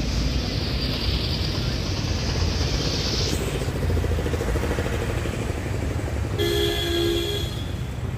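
Steady street and traffic noise. Near the end a vehicle horn honks once for about a second, two steady tones sounding together.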